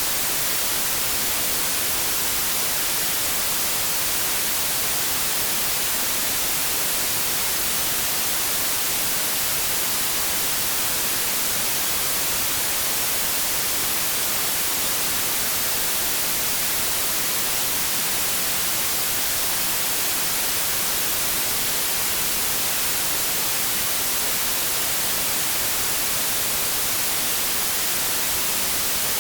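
Steady white-noise static: an even, bright hiss with no change in level.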